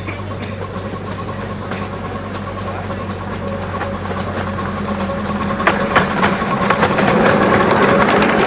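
Miniature ridable passenger train approaching and running past close by, getting steadily louder: a steady mechanical hum with wheels clattering on the rails, and a couple of sharp clacks a little past halfway.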